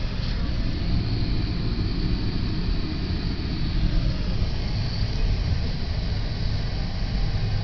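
Car driving, heard from inside the cabin: a steady low rumble of engine and tyres on a snow-packed road.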